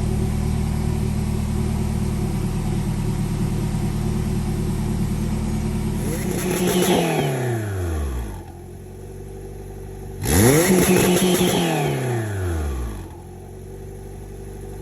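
Turbocharged Honda B20 four-cylinder engine idling steadily, then revved sharply twice, the revs falling back each time with a high whistle over each rev.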